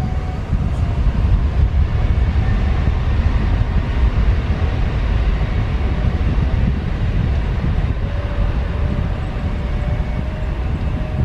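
Boeing 737 jet engines during departure: a loud, steady low rumble that sets in suddenly and holds.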